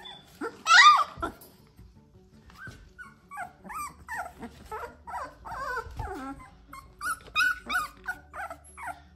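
Several young puppies whining and yelping in short, high, pitch-bending calls, with one loud yelp about a second in, then a quick run of many short whines.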